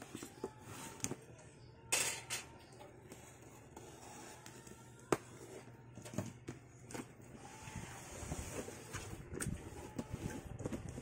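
Cardboard box being handled and turned over on a table: scattered taps, scrapes and rustles, with a louder scrape about two seconds in and a sharp click about five seconds in.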